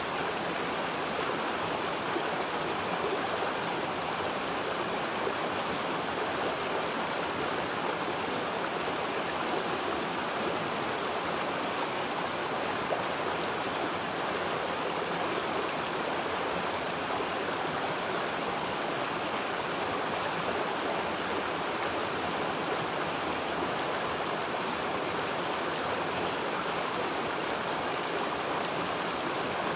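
Flowing water running steadily, an even hiss without pauses or changes.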